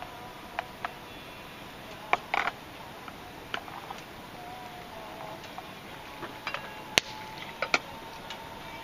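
Wood campfire crackling, with irregular sharp pops and snaps from the burning wood over a low steady background. The loudest snap comes about seven seconds in.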